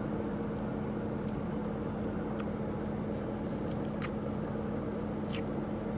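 Steady hum of an idling car engine, with a few faint clicks.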